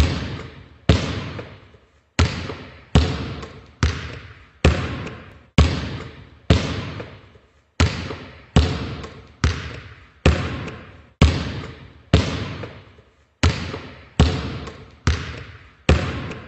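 A steady series of sharp knocks, about one a second, each fading away over most of a second like an echo.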